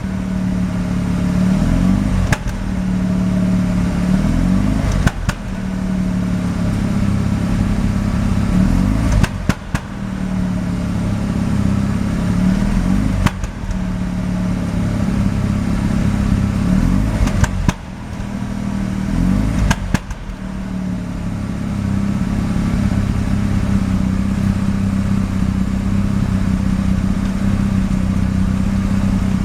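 Mazda RX-7 FD's twin-rotor rotary engine idling roughly, its steady note broken every few seconds by a sharp pop: misfiring.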